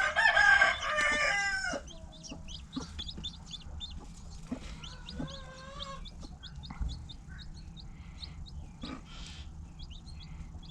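A rooster crows once, for about two seconds, right at the start. After that, chicks keep up quick, high peeping, and about halfway through a hen gives a drawn-out lower call.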